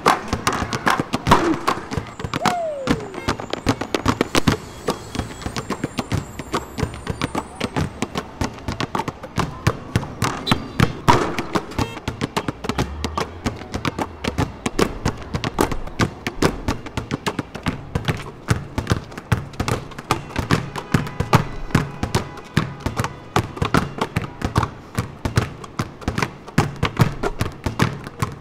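Several basketballs dribbled in rhythm on a hard outdoor court, the bounces forming a dense, steady percussive groove.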